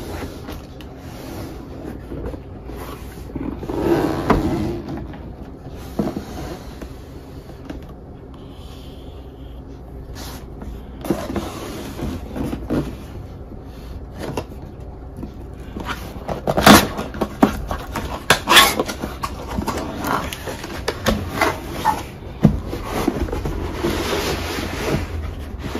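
Hands handling cardboard and plastic packaging while unboxing a laptop: irregular scraping and rustling with scattered sharp clicks and knocks, the two loudest coming close together about two-thirds of the way through.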